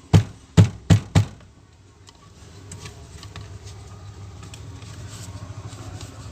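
Four sharp knocks in quick succession, coming closer together, within the first second and a half, then a faint low hum with a few light clicks.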